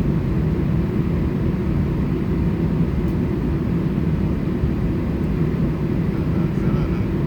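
Steady low rumble inside an Airbus A320's cabin, with a faint constant hum, from the jet engines running at a steady power.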